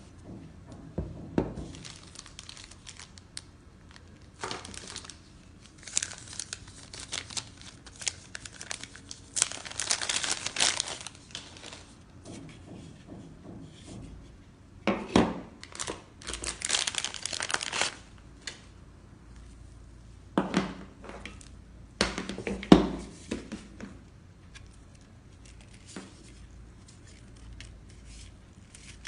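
Packaging being handled during an unboxing: plastic wrapping crinkling and tearing in bursts, with occasional knocks as items are moved.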